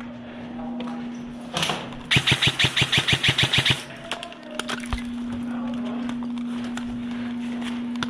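Airsoft gun firing a rapid burst of about a dozen shots in under two seconds, with a few single clicks after it, over a steady low hum.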